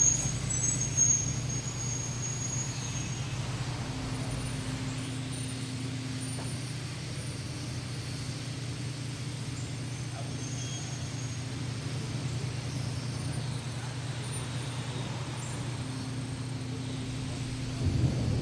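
A steady low drone with faint held tones above it that come and go, and a brief swell in loudness near the end.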